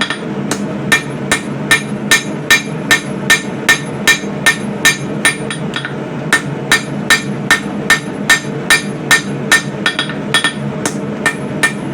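A three-pound hand hammer striking hot coil-spring steel on an anvil in a steady rhythm, about two and a half blows a second, each blow ringing briefly. It is drawing out the bevel of a knife blade.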